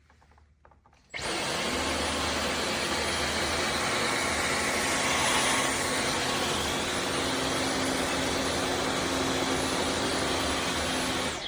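Dyson V15 Detect Plus cordless stick vacuum switching on about a second in, running steadily at one pitch with a strong hiss, and cutting off at the end.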